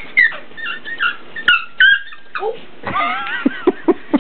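Hound puppy yelping in a string of short high-pitched cries, then a longer wavering whine about three seconds in, with a few soft thumps near the end.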